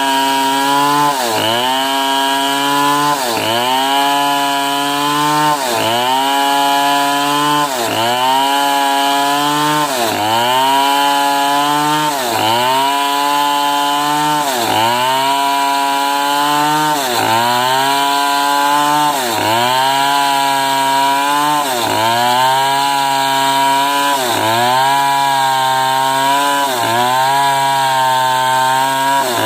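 Chainsaw ripping a medang log lengthwise at full throttle. The engine pitch sags under load and recovers about every two seconds as the bar is worked through the cut.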